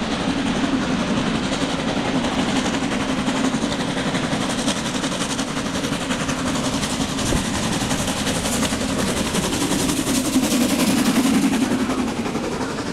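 Narrow-gauge steam locomotive working at full steam, rapid exhaust beats over the noise of the running train, getting louder as it draws near and passes close about ten seconds in; the coaches then rattle past on the rails.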